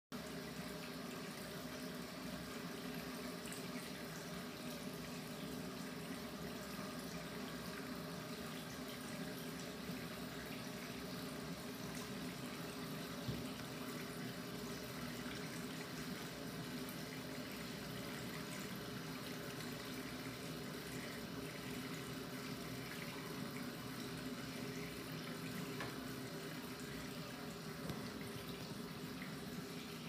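Waterfall bathroom sink faucet running steadily, its open sheet of water splashing into the sink basin, with one brief click midway.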